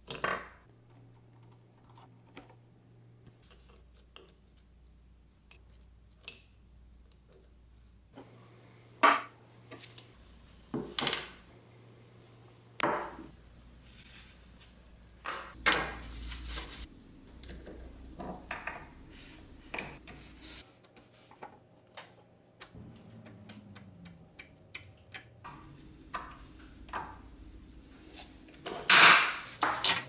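Small metal parts of a Milwaukee M12 impact driver clinking, clicking and knocking as they are handled with a screwdriver and set down on a wooden workbench. The knocks are scattered and irregular, with the loudest cluster near the end.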